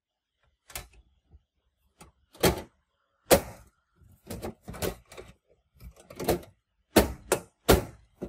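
Computer hardware being handled and fitted together by hand: over a dozen sharp clicks and knocks at irregular intervals, a few of them clearly louder than the rest.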